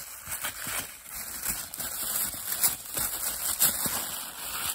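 Packaging being opened by hand: a run of crackly crinkling and rustling, with small clicks and snaps throughout.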